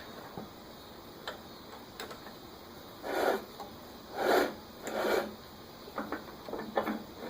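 Workshop handling sounds at an idle wood lathe: a few light knocks, then three short scraping or sliding sounds a little under a second apart, and more small clicks near the end.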